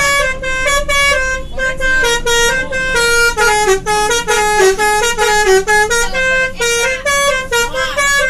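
Basuri telolet multi-tone bus horn playing a quick melody of short notes, several a second, stepping up and down in pitch. A low steady hum, likely the bus engine, runs underneath.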